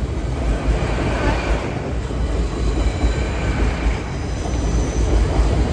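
Passenger train running past at close range: a steady, loud rumble of wheels on the rails with faint high squealing tones over it.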